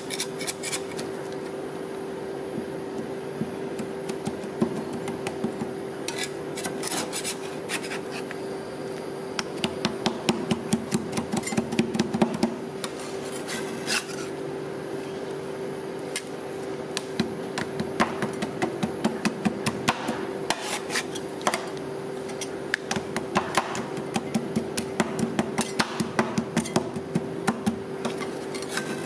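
Two metal spatulas chopping and scraping egg, cream and sticky rice on the steel cold plate of a rolled-ice-cream machine: rapid metallic taps in repeated bursts mixed with scraping, over a steady hum.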